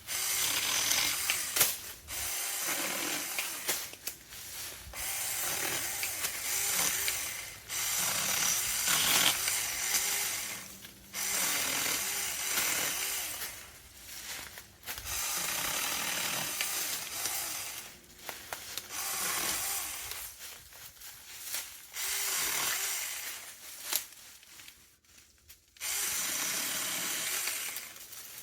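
Saker 4-inch mini 20-volt battery chainsaw cutting small pine branches in a series of short cuts, each running two to three seconds, with brief pauses between them.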